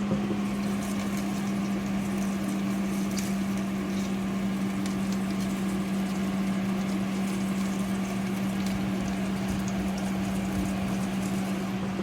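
Countertop air fryer toaster oven running: a steady hum with one low, unchanging tone from its convection fan motor, and faint scattered ticks over it.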